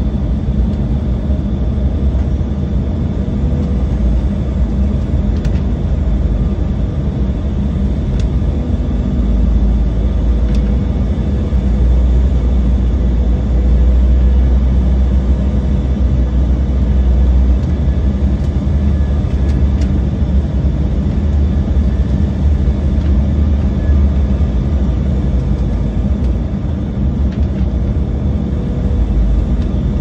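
Cabin noise inside an Embraer 190 airliner descending on approach: the steady roar of airflow and its turbofan engines, with a heavy low rumble that swells through the middle and a steady whine. A few faint clicks sound over it.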